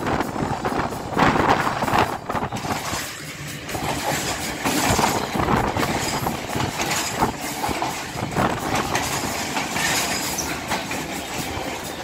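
Passenger train carriage running along the track, heard through an open window: a steady rumble and rattle, with the wheels knocking over rail joints now and then.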